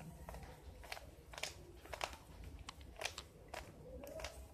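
Rubik's cube layers being turned through an algorithm: faint, irregular plastic clicks, a couple each second.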